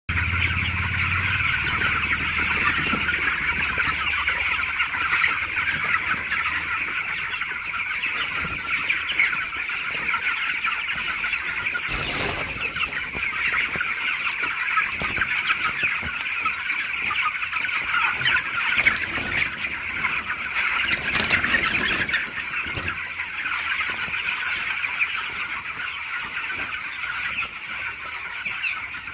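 A large flock of young chickens peeping and clucking all at once, a dense, steady chatter of many overlapping high calls.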